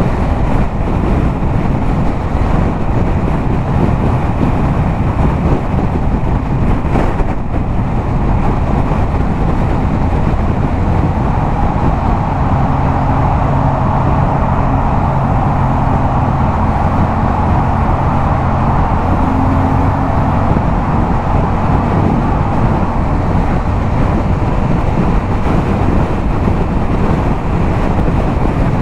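Yamaha MT-07's parallel-twin engine, fitted with an aftermarket LeoVince exhaust, running steadily at highway cruising speed, mixed with wind rush on the microphone.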